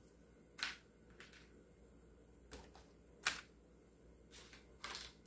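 About five light clicks and clatters of small items being handled and set into a wire basket in a kitchen drawer, the loudest a little past three seconds in.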